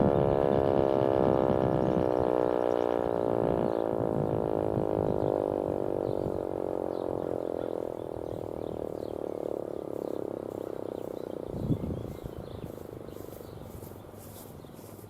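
ASC T-121 electro-mechanical outdoor warning siren winding down after its short alert test signal, its many-toned wail falling steadily in pitch and fading away over about ten seconds. A single low thump comes near the end.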